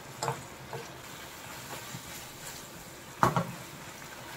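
Prawns sizzling in a reducing soy-and-oyster sauce in a wok, a steady hiss, as a metal spatula stirs and scrapes against the pan. The spatula clatters briefly just after the start and loudest about three seconds in.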